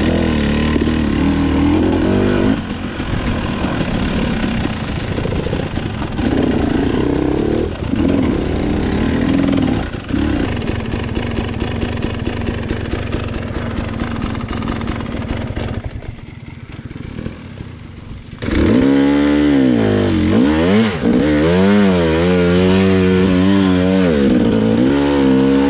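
Dirt bike engine running. About eighteen seconds in it gets louder, and the revs rise and fall again and again as the bike is ridden.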